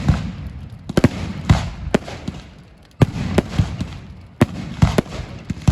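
Fireworks going off at a bonfire-night display: about a dozen sharp bangs at uneven intervals, with crackling between them.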